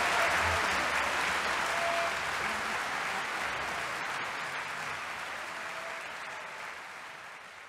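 Concert audience applauding, the applause fading away steadily.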